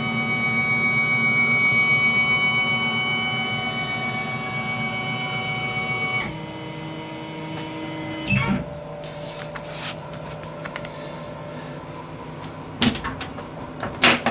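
Tormach PCNC 1100 CNC mill's axis drive whining steadily as the head is lowered. The whine changes to a different pitch about six seconds in and stops a couple of seconds later, followed by a few light knocks near the end.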